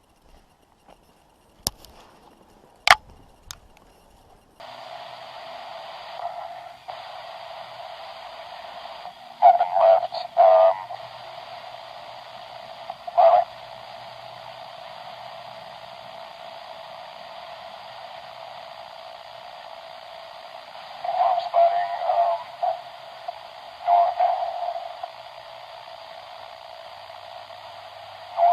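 A few sharp clicks, then a steady radio-like hiss of static that cuts in suddenly a few seconds in, thin and narrow as through a small speaker. Short garbled bursts break through it every few seconds.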